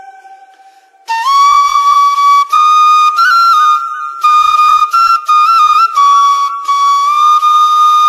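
Background music on a solo flute: a held note dies away, then about a second in a new phrase enters, long held notes with small ornaments and brief breaks between them.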